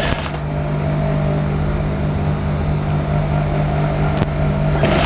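Electric sewing machine running steadily with a constant motor hum as it stitches an invisible zip tape onto a blouse, with a single sharp click about four seconds in.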